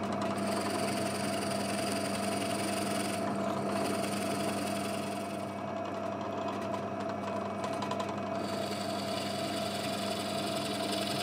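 Drill press running steadily, its twist bit boring tuner holes through a wooden guitar headstock into a backing board, with a constant motor hum.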